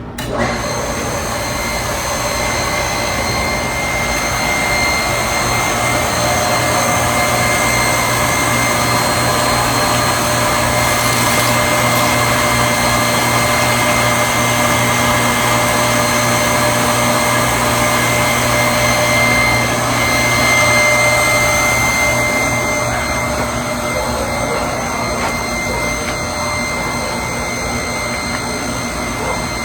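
Steady whirring motor noise with a high whine, starting abruptly.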